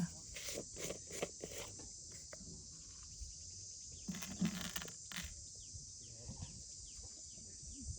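Steady, high-pitched insect chorus of crickets, with scattered rustles and knocks in the first two seconds and again about four seconds in, and a run of short falling chirps in the second half.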